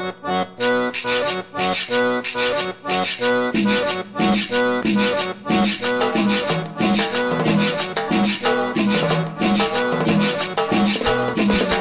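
Cumbia music playing: an accordion melody over a steady percussion beat, with a fuller low line joining about three and a half seconds in.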